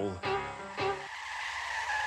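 Documentary background music: held notes for about a second, then a thin high note held steady, with a squeal-like quality.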